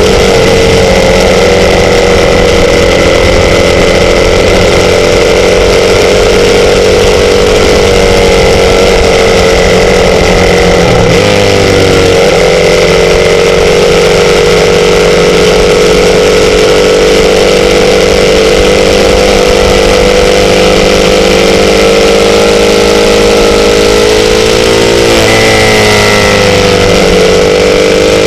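Sport bike engine running steadily at a fairly constant pitch, which dips and climbs back briefly twice, about eleven seconds in and again near the end.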